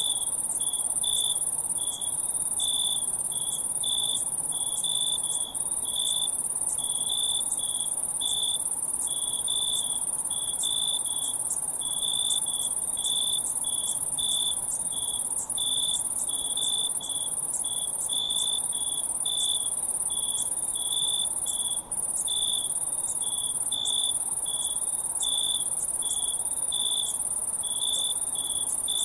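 Crickets chirping in a night chorus: a steady high-pitched trill over a lower chirp that repeats evenly, about two to three times a second.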